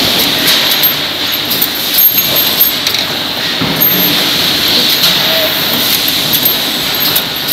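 Industrial metalworking machine with an automatic job-feeding mechanism running: a loud, steady mechanical din with irregular sharp clicks.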